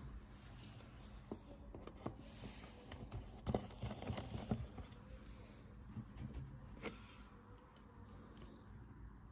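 Faint clicks and scrapes of a small precision screwdriver turning tiny screws into an Apple USB SuperDrive's metal case, busiest around the middle, with one sharper click later on.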